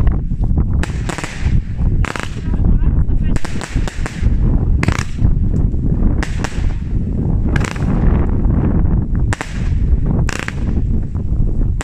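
Xplode 'No Fear' fireworks fan cake firing: a run of sharp shot and burst bangs, roughly one a second, over a steady low rumble.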